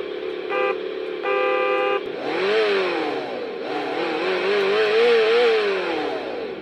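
RC engine sound simulator module playing a synthesized vehicle horn as three toots, the last one longest, over its engine-idle hum. The simulated engine then revs up and down twice, the second rev longer, as throttle input is given with the drive motor unplugged.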